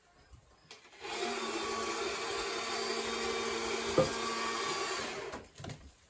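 Small electric hoist motor running for about four seconds as it lifts a strapped bundle of wood slabs, a steady hum, with one sharp knock about four seconds in.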